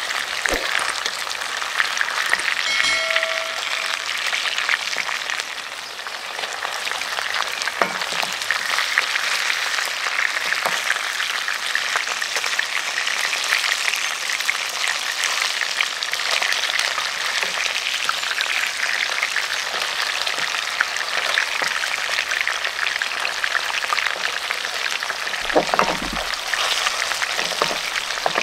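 Whole mackerel deep frying in hot oil, a steady dense crackle and sizzle, with a metal spatula moving the fish in the pan now and then. A brief ringing tone about three seconds in, and a couple of dull knocks near the end.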